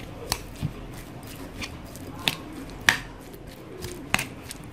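Metal spoon stirring a moist ground-pork and chopped-vegetable filling in a ceramic bowl: soft wet squishing with irregular sharp clicks of the spoon against the bowl, the loudest about three seconds in.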